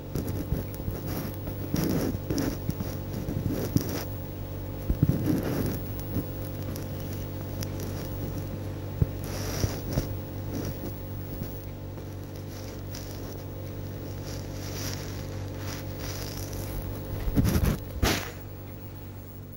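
Handling noise: a ginger kitten's fur and the holder's clothes rustle and scrape against the phone's microphone in irregular scuffles, with a louder bout near the end, over a steady low hum.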